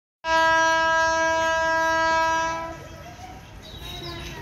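Horn of a WAG-7 electric freight locomotive sounding one long steady blast of about two and a half seconds, then dying away.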